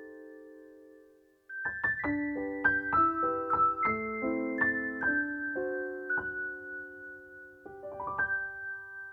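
Background piano music: a held chord fades out, then a gentle melody of single notes and chords picks up about a second and a half in, closing on a chord near the end.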